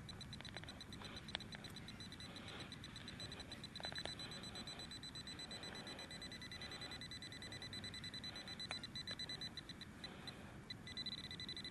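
TRX handheld pinpointer sounding a high, rapidly pulsing beep as it sits near a metal target in the dig hole, dropping out briefly and then coming back as a steadier tone near the end. A few sharp clicks from the digging cut in.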